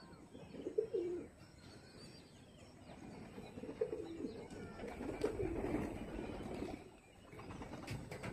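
Domestic pigeons cooing faintly, a few low coos spread over several seconds.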